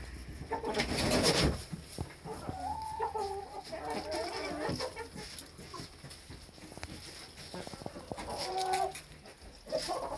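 Domestic chickens clucking and calling in short wavering phrases, with a loud rustling scuffle about a second in.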